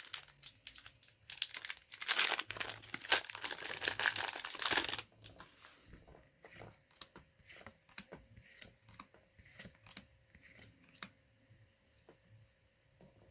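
Foil booster pack wrapper being torn open and crinkled for about five seconds, then quieter light clicks and rustles of trading cards being handled.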